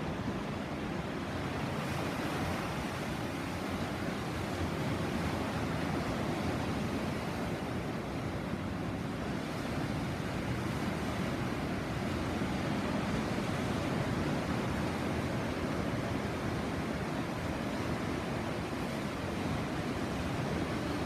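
Sea waves breaking and washing on the shore in a steady, unbroken surf noise, with some wind.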